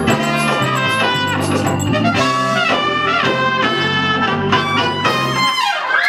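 Two trumpets playing a melody together over organ accompaniment. The low accompaniment stops about five and a half seconds in, and a note glides down in pitch just before the end.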